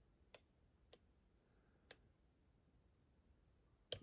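Faint, sharp clicks of a lock pick working the pins inside an ISEO R6 lock cylinder: four separate clicks spread over about four seconds, the last one the loudest.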